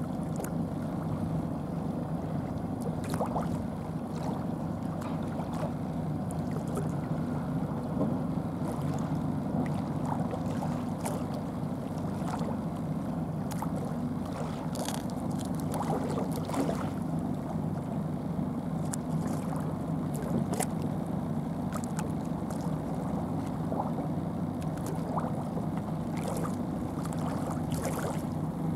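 Steady low motor hum, with faint scattered clicks and ticks over it.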